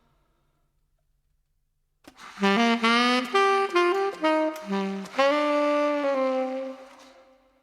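Solo saxophone playing a slow, melodic jazz phrase that enters after about two seconds of silence, moving through several notes and ending on a long held note that fades out.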